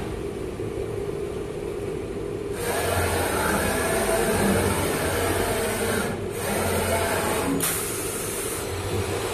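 CNC wood-turning lathe running with a steady hum. A broad hiss, typical of the cutter working the spinning wood, starts about a third of the way in and breaks off briefly twice near the end.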